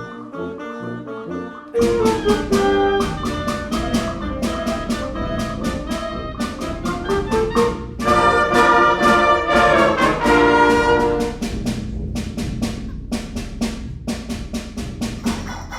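Concert band playing a fast galop: brass and woodwinds over steady drum beats. The full band comes in loudly about two seconds in, and the brass is loudest for a few seconds in the middle.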